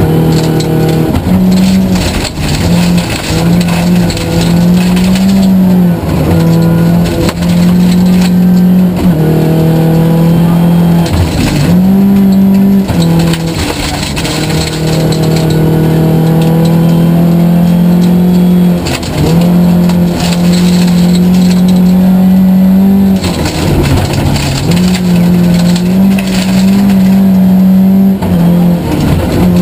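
Tuned Volvo 940 rally car's engine heard from inside the cabin, driven hard at high revs. The revs drop sharply and climb again about five times as the driver lifts off and changes gear, over steady road noise from the gravel.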